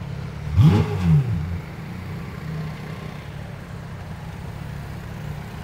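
Pagani Zonda F Roadster's naturally aspirated V12 blipped twice in quick succession about half a second in, each rev rising and falling in pitch, then running at low revs with a steady rumble.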